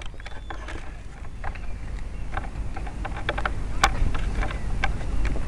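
Clicks and taps from a small RC model plane being handled on the ground, picked up by the tiny camera mounted on it, over a low rumble of wind on its microphone. Two of the clicks are sharper, about 4 seconds in and just after the end.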